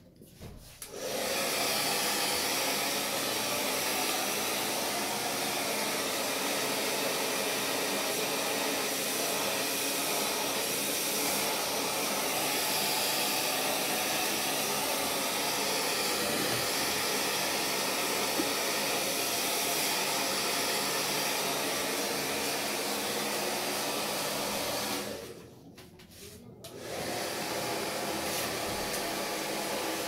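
Handheld hair dryer blowing steadily, starting about a second in. It drops away for about a second and a half near the end, then runs again.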